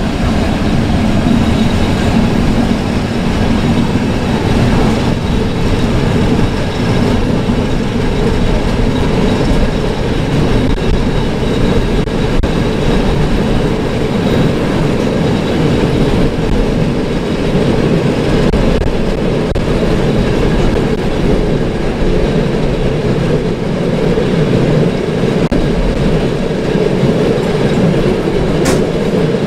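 Special train hauled by an SP42 diesel locomotive, heard from aboard while running: a steady rolling rumble of wheels on the rails.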